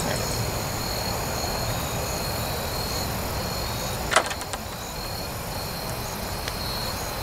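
Insects chirping in short repeated high pulses over a low, steady rumble, with one sharp click about four seconds in.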